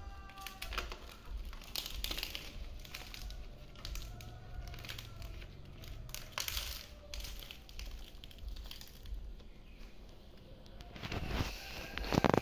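Dong leaves rustling and crinkling as they are folded and pressed by hand into a square bánh chưng packet, with irregular crinkles that grow louder near the end.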